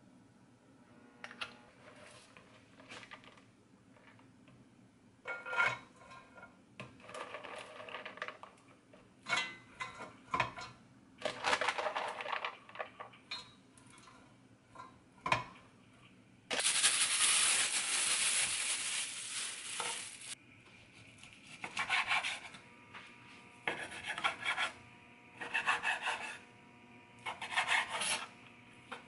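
Kitchen work sounds: light scraping and clatter against a stainless steel pot and its wire steaming rack as it is oiled, then soybean sprouts being handled into the pot, with a loud rustling spell of a few seconds about halfway. Near the end comes a knife sawing through raw pork belly on a wooden cutting board, in evenly spaced rasping strokes.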